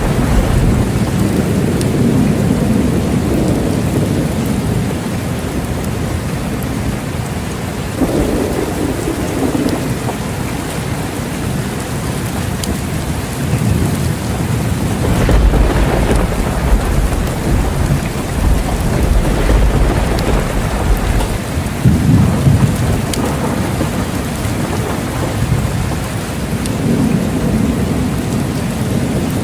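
Steady heavy rain with thunder rumbling at intervals; a long low rumble rolls through about halfway, and another swells shortly after.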